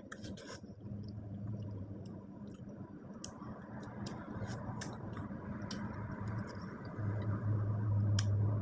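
Wet mouth sounds of a person chewing ripe mango slices by hand, with scattered sharp smacking clicks. A low steady hum grows louder near the end.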